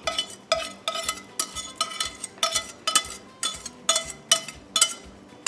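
A spoon knocking repeatedly against a casserole dish, about two sharp clinks a second, each ringing briefly, as food is spooned and worked into the dish.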